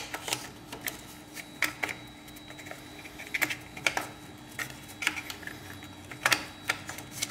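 Irregular small clicks and taps of hard parts being handled as a micro switch and its cover are fitted back onto a Eureka Zenith grinder's doser, with a sharper click right at the start and another about six seconds in.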